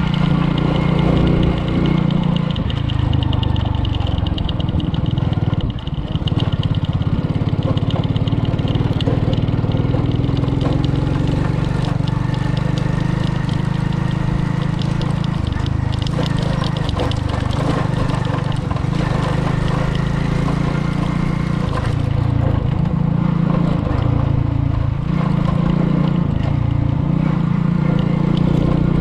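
Car engine running while driving, its pitch stepping up and down several times as the speed changes, over steady road noise.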